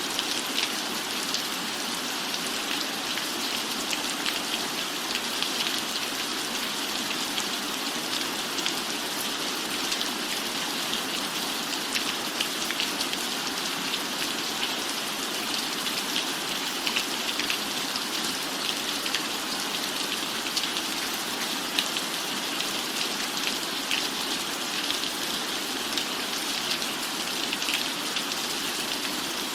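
Steady rain falling, a constant even hiss scattered with many small drop ticks.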